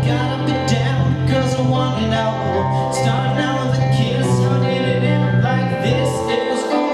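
A live band playing: guitars, one of them acoustic, strummed over a drum kit with steady cymbal hits. The low held notes drop out about six seconds in.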